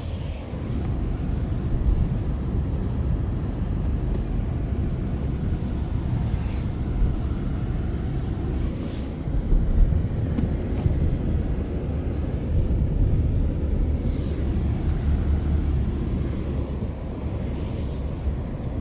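Car driving along: a steady low rumble of road and engine noise, swelling briefly about ten seconds in.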